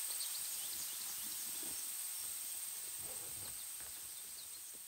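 Outdoor ambience of a steady, high-pitched insect chorus with faint, scattered small chirps over it. The whole sound fades down near the end.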